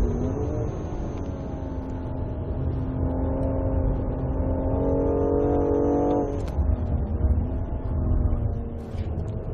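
BMW M235i's 3.0-litre turbocharged straight-six running hard on track, heard from inside the car. The engine note holds and creeps up in pitch for about six seconds, then drops suddenly. Two short sharp sounds follow, the second near the end.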